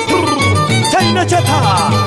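Andean scissors-dance (danza de tijeras) music: a violin plays quick, sliding, ornamented phrases over a low repeating bass line.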